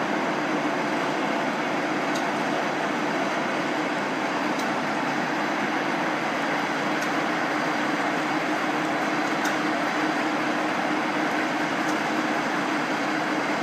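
Large Poreba heavy engine lathe running steadily under power, its drive motor and gearing giving an even mechanical hum with a faint high tick about every two and a half seconds.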